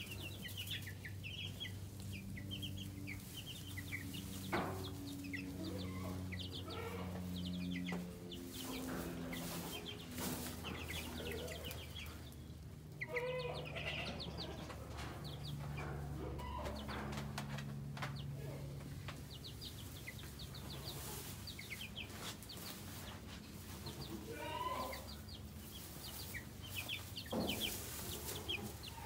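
A brood of two-week-old chicks, Cornish meat chicks and egg-layer chicks, peeping in a continual scatter of short high chirps. Underneath runs a low steady tone that shifts pitch in steps.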